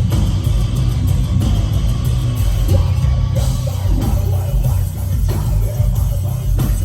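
Heavy metal band playing live: distorted guitars, bass and drums, with shouted vocals coming in about three seconds in.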